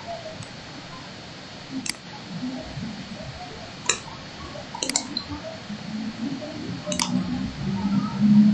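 Computer mouse clicking: four single clicks, a second or two apart.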